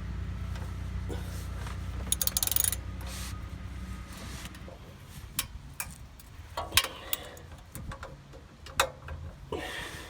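A 14mm wrench clicking and clinking against the muffler hanger bolts as they are worked loose, in sharp separate clicks mostly in the second half. A low steady hum runs under the first half and stops about four and a half seconds in.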